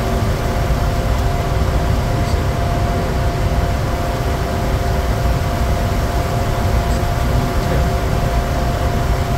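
Cabin noise of a Bombardier Challenger 350 jet in descent: a steady rush of airflow and rear-mounted turbofan engines, with a heavy low rumble and a few steady hums running under it.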